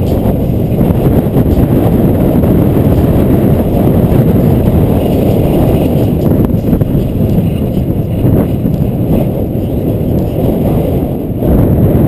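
Heavy wind buffeting the microphone of a camera on a fast downhill bicycle descent, a steady low rushing that dips briefly near the end.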